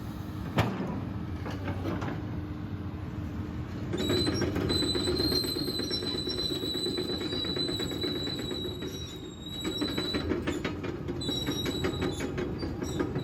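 Komatsu PC210LC-7 hydraulic excavator running: a steady diesel rumble, joined about four seconds in by a high, steady whine with a fast ticking rattle. The whine drops out for about a second and a half near ten seconds, then comes back.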